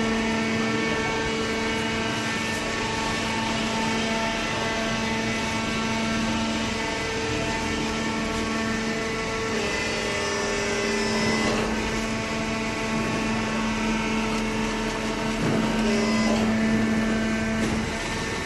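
Paper baling machine running with a steady pitched hum, with a few knocks and clanks in the second half.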